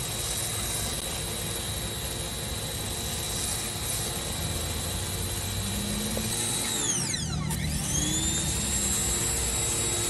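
Pressure washer running steadily, spraying soapy water into an AC unit's condenser coil, with a steady hum and a thin high whine. About seven seconds in, a whoosh sweeps down in pitch and back up again.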